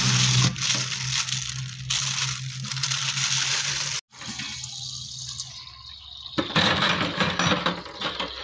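Tap water pouring into a stainless steel pot of raw beef offal in a sink, rinsing it; the splashing grows louder about six seconds in. Before a cut about four seconds in there is a steady hiss with a low hum.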